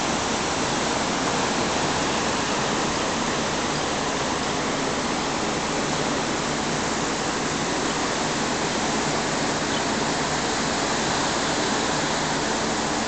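Hotel room air conditioner running: a steady, even rush of air noise with a faint low hum beneath it.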